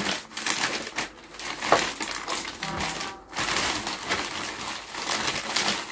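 Plastic courier mailer bag rustling and crinkling as it is wiped down and handled, with a sharp, louder crackle just under two seconds in.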